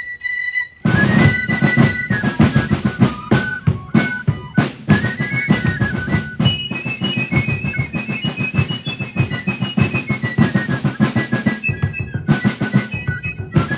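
A fife and drum corps playing a march: fifes carry a high melody, and about a second in snare and bass drums come in loudly with rolls and rapid strokes beneath it.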